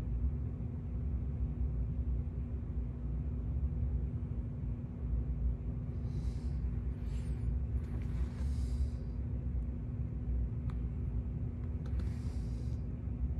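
Steady low room hum with a faint steady tone underneath. A few short, airy breaths come in a cluster around the middle and once more near the end.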